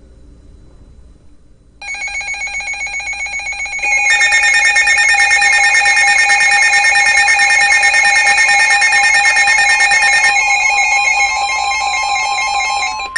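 Emergency alert attention tones: a rapidly pulsing, multi-tone alarm from several devices sounding at once. It starts about two seconds in, grows louder and fuller as more join about four seconds in, and is signalling a flash flood warning.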